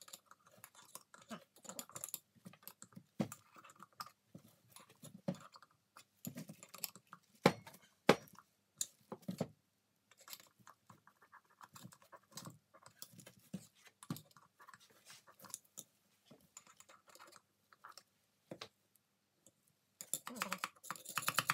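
Metal parts of a three-jaw lathe chuck being handled and worked loose by hand: scattered small clicks, scrapes and light taps, with two sharper knocks about seven and eight seconds in. Near the end, a quick run of rasping clicks.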